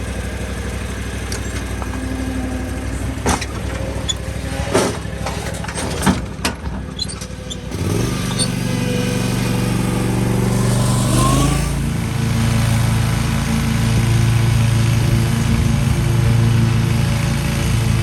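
Mower engine running steadily, with a few sharp knocks in the first half, then throttled up: its pitch rises for a few seconds and holds at a higher, steady speed.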